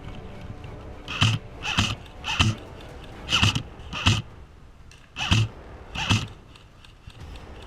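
Footsteps: seven steps at a walking pace, with two short pauses between groups.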